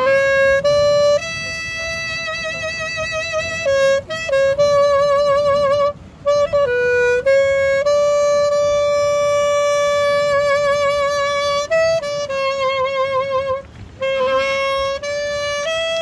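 Saxophone playing a slow solo melody: long held notes with vibrato, one held about three seconds in the middle, separated by short breaks between phrases.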